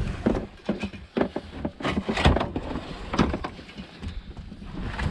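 Irregular squelches and thumps of someone struggling step by step through deep riverbank mud.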